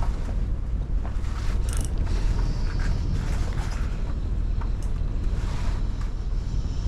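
Steady low wind rumble on the microphone, with a few faint clicks and rustles.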